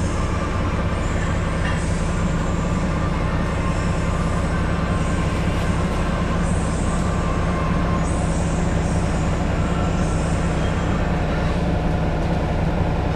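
Cummins ISM diesel engine of a 2000 Neoplan AN440 transit bus, heard from inside the passenger cabin, running steadily with a deep, really bassy drone.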